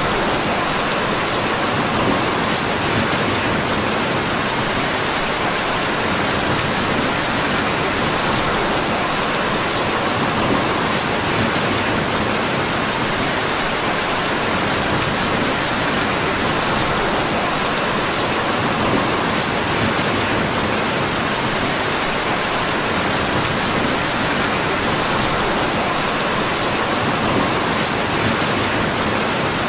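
Steady, dense rainfall, an even hiss with faint scattered ticks of individual drops.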